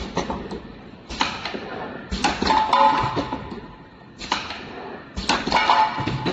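Rotary-table cosmetic cream filling and capping machine running: sharp mechanical clicks and clatters in clusters about a second apart, the loudest coming about every three seconds as the table steps round, with small glass bottles clinking in their pucks.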